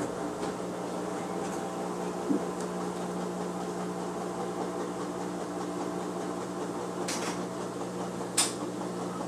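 Front-loading washing machine running with a steady motor hum, with a few sharp clicks, the loudest near the end.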